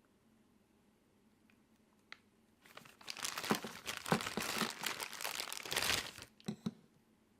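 Crinkling and rustling of something being handled, for about three and a half seconds, followed by two short clicks.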